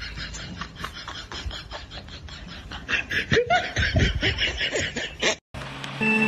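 A person laughing in quick, breathy gasps, growing louder and fuller about three seconds in. It cuts off suddenly near the end, and music with steady held notes starts.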